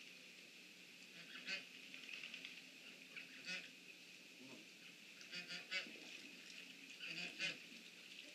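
Waterfowl calling faintly from off-screen: short calls in small groups, every two seconds or so.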